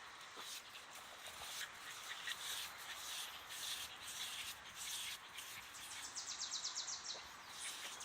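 Dog digging with its front paws, claws scratching through wet soil in irregular strokes, with a fast run of about a dozen scratches in a second about six seconds in.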